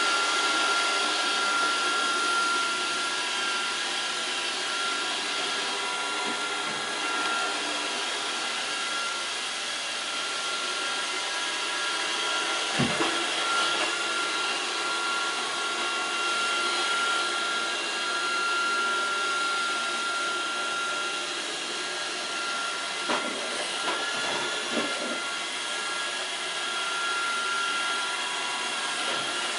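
Roomba robot vacuum running steadily: motor and brush noise with a thin high whine over it. A few short knocks come through, one about halfway and a small cluster later on.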